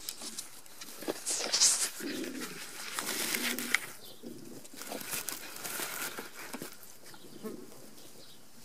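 Rustling and knocks from a handheld camera being moved about and set down in grass, with a soft low animal call about two seconds in.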